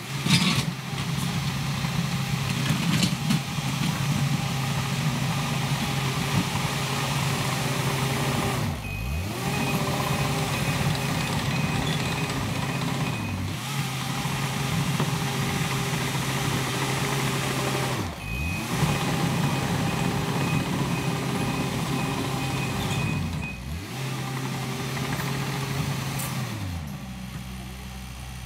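CAT D3 Next Gen dozer's diesel engine working as it pushes and backs up, its backup alarm beeping twice, each time for several seconds while it reverses. The engine dips briefly at each change of direction and settles to a quieter idle near the end.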